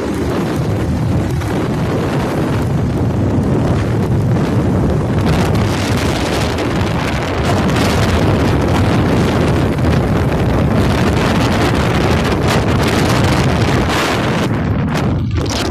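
Heavy wind buffeting a phone's microphone on a moving motorcycle, over the motorcycle's running and road noise.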